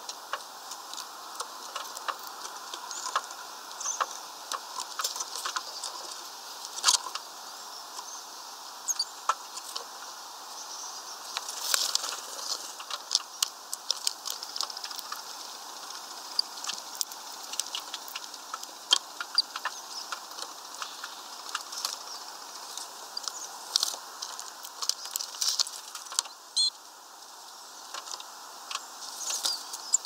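Irregular clicks and taps of small birds, a European greenfinch and a great tit, pecking and cracking sunflower seeds and shuffling on a feeder's plastic tray, over a steady background hiss.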